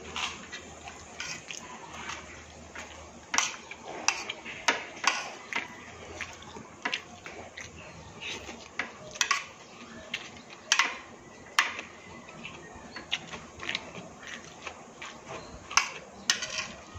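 A person eating from a plate: irregular clinks of a metal spoon against a ceramic plate, mixed with chewing and mouth sounds.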